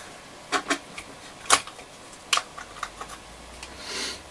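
Sharp clicks and knocks from a transistor radio's case and front panel being handled on a bench: about four distinct taps in the first two and a half seconds, a few lighter ticks, then a brief rub near the end.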